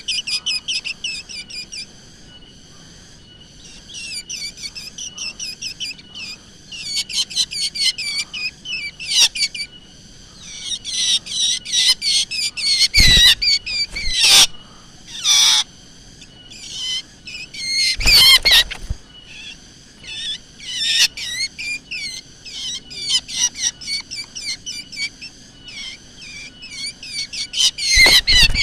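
Black drongo calling: rapid runs of quick, high whistled and chattering notes in bursts with short pauses, broken by a few short, loud, harsh sounds about halfway through and near the end.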